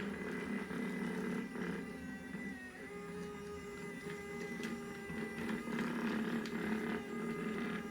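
Small battery-powered Daiso robot vacuum cleaner whirring steadily, with a motor whine that dips slightly in pitch about three seconds in and a few light clicks later on.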